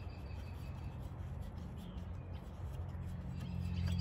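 Faint rubbing and clicking of hands and pliers working among plastic fuel and vacuum hoses in a car's engine bay, over a steady low hum. A bird chirps in a quick series near the end.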